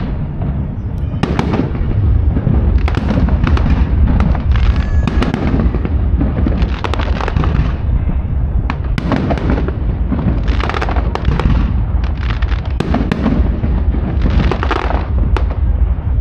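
Aerial firework shells bursting: an irregular run of sharp bangs and crackles, some coming in quick clusters, over a steady low rumble.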